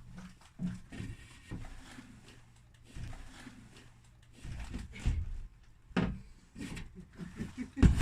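Irregular wooden knocks and bumps as a cupboard is handled and fitted into place. There are a few sharp knocks about six seconds in, and the loudest comes near the end.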